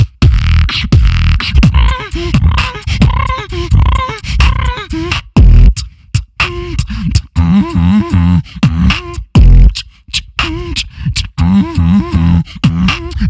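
Solo beatboxing into a handheld microphone cupped in both hands: a fast run of mouth-made kick and snare hits mixed with bass tones that bend up and down in pitch. Deep low booms stand out about five and nine and a half seconds in.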